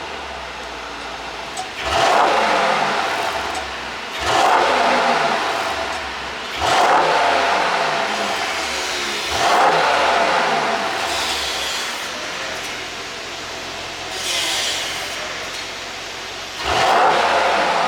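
A Mercedes-AMG GT 63 S's twin-turbo V8 with an ECU exhaust-pop tune, stationary and being revved in six sharp throttle blips a few seconds apart. Each rev falls back to idle.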